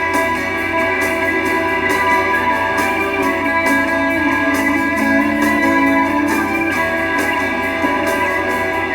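Instrumental break in a song, with guitar playing over the band backing and no singing.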